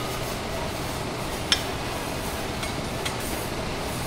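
Metal utensils clinking at a teppanyaki griddle: one sharp clink about a second and a half in, then two lighter ticks, over a steady background noise.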